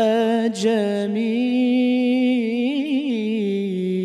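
A male munshid's solo singing voice in an Egyptian religious praise song for the Prophet, sustaining one long note that rises in at the start, wavers in a quick ornamental trill about three seconds in, and drops to a lower held note near the end.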